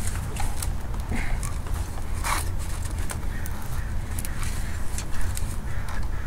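Scattered small clicks and knocks of a shift cable end and its retaining clip being worked onto a short shifter box, with one sharper click about two and a half seconds in. A steady low rumble runs underneath.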